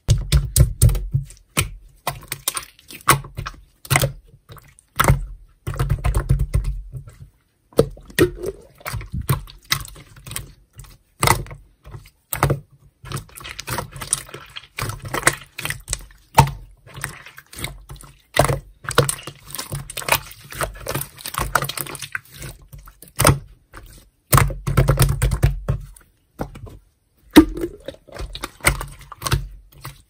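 Hands squishing, poking and stretching a glossy green slime, making a constant run of sticky clicks, crackles and small pops. Every so often a low rumble comes with the clicks, where the slime is pressed down hard.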